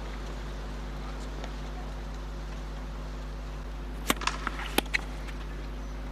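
Tennis ball hit with racquets on a clay court: a lull with only a steady low hum and faint crowd noise, then a serve struck about four seconds in and returned less than a second later, with a few softer ball sounds in between.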